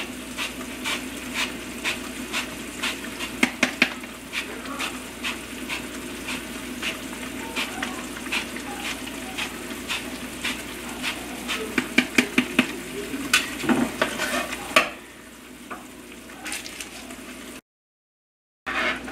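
A lemon rasped across a microplane zester in repeated short scraping strokes, with a quicker run of strokes past the middle. Under it, the steady sizzle-like bubbling of the simmering stew in the pan.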